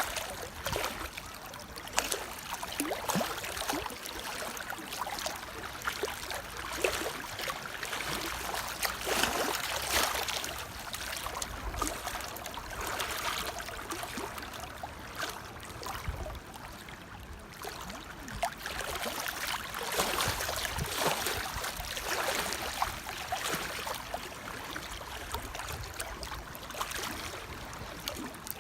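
Running water trickling and splashing, with many small irregular splashes over a steady wash.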